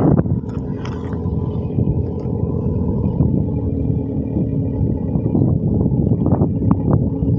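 Wind buffeting a phone's microphone: a loud, continuous low rumble, with a faint steady whine above it for a few seconds midway.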